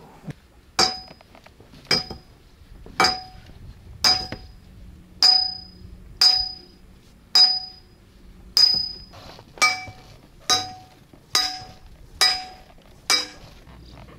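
A steel pipe being driven into a riverbed by repeated metal-on-metal blows: about thirteen ringing clangs, roughly one a second, coming a little faster near the end.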